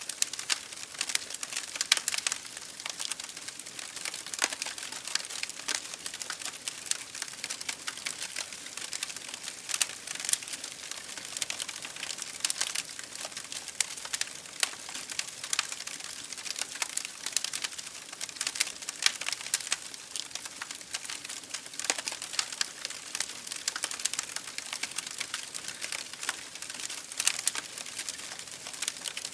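Wood fire burning in an open fireplace, crackling and popping continuously and irregularly over a soft steady hiss.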